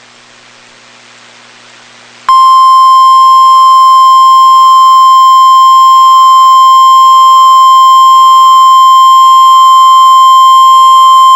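Faint radio hiss, then about two seconds in a loud, steady, single-pitch alert tone starts abruptly. It is the 1050 Hz NOAA Weather Radio warning alarm tone of an Emergency Alert System broadcast, the signal that a warning is about to be read.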